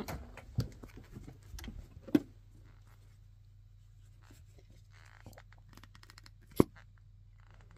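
Quiet handling of fabric and craft supplies: soft rustling and small clicks, then one sharp click a little over six seconds in, over a low steady hum.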